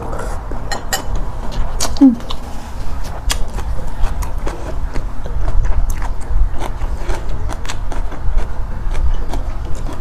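Close-miked eating of noodle soup: noodles slurped with chopsticks, then chewing with many sharp wet mouth clicks and smacks, over a steady low hum.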